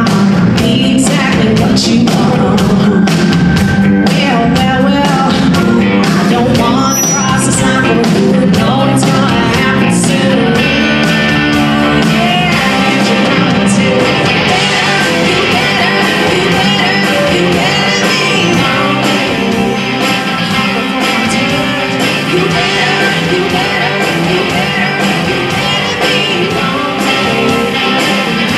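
Live rock band playing: electric guitar and drum kit with singing. The drum hits stand out in the first half, and a sustained electric guitar line fills more of the second half.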